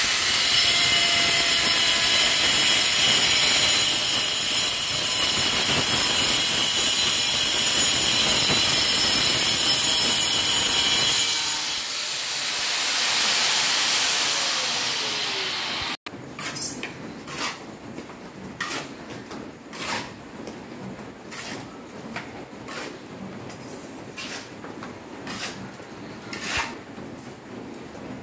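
Power cutter grinding through ceramic tile with a steady high whine, then winding down with a falling pitch. After that comes a series of separate sharp taps, about one a second.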